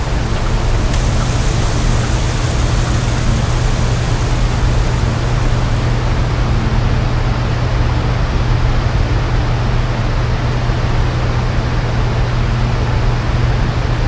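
Loud, steady rushing noise with a deep hum underneath, a dense sound-design drone. The high hiss on top fades away after about six seconds.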